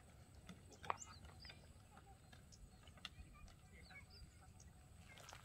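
Near silence: faint outdoor ambience with scattered short bird chirps and a faint click about a second in.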